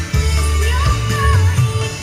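Background pop song: a sung melody over a strong, pulsing bass line.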